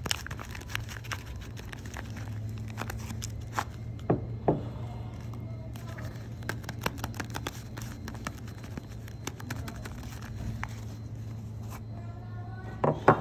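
Soap packaging being handled and unwrapped: dense crinkling and crackling with many small sharp clicks, a couple of louder knocks about four seconds in and again near the end, over a steady low hum.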